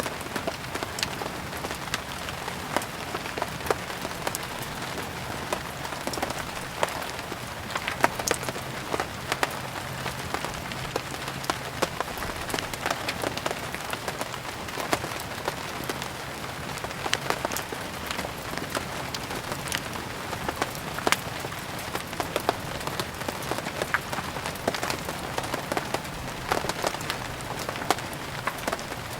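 Steady rain with irregular sharp crackles and pops of a wood fire burning.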